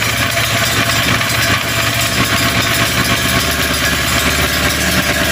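Small portable petrol generator running steadily, just after being started.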